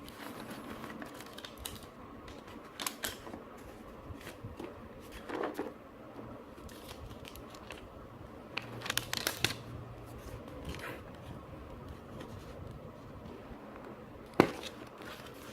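Packaging of a GoPro Hero5 Black being worked open by hand: scattered clicks, scrapes and rustles of plastic and cardboard, with one sharp click near the end.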